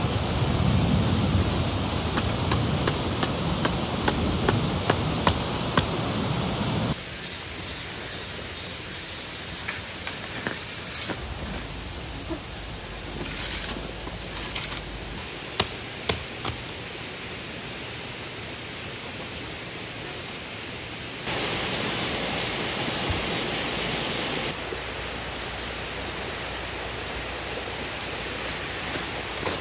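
A tent peg being hammered into gravel: about eight sharp strikes roughly half a second apart, over a steady hiss of outdoor noise. A few more scattered knocks follow later.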